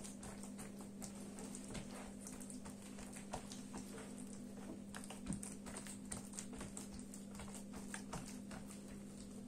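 Hands pressing and patting buttered sheets of dough on a wooden tabletop, making scattered, irregular soft taps and slaps, over a steady low hum.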